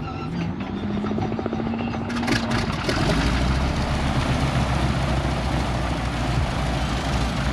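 A warbird's piston aero engine starting: a starter whine rises slowly over rapid pulsing for about two and a half seconds, then the engine catches about three seconds in and runs with a loud, steady rumble.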